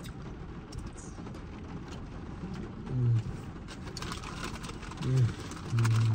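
Snack-bag crinkling and chewing, with a few short, low hummed "mm" sounds of someone tasting.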